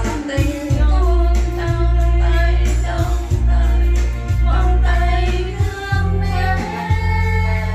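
Karaoke: a woman singing into a microphone over an amplified backing track with a deep bass line.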